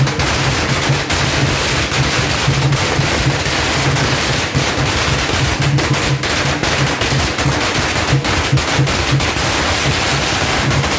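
A long string of firecrackers going off in a continuous, rapid crackle of sharp pops.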